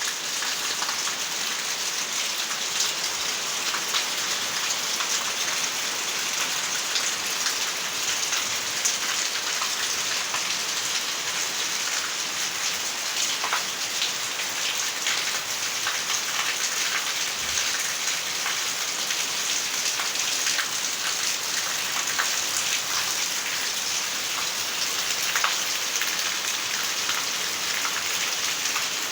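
Steady rain falling, a continuous hiss with many fine drop ticks.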